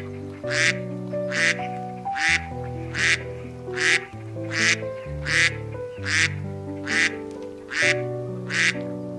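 Mallard duck quacking over and over in an even rhythm, a little more than one rasping quack a second, over background music with sustained notes.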